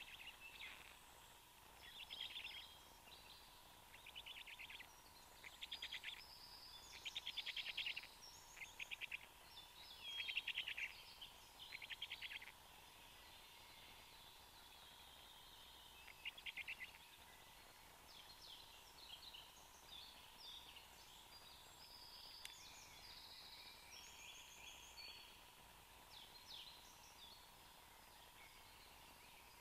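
Small forest songbirds singing, a run of short trilled phrases one after another, busiest in the first half. A faint steady hum runs under the song.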